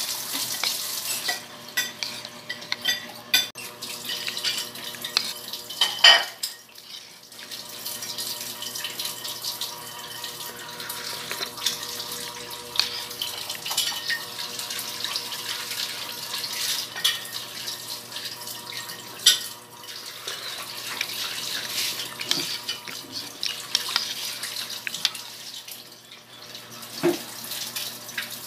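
A metal spoon stirs and scrapes through thick binignit porridge in a ceramic bowl, with scattered clinks of the spoon against the bowl as she eats.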